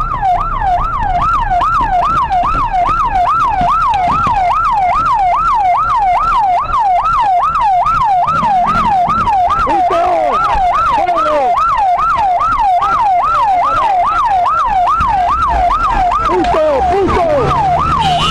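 Emergency vehicle siren on a fast yelp, its pitch sweeping up and down about two and a half times a second, over a low rumble of vehicle noise.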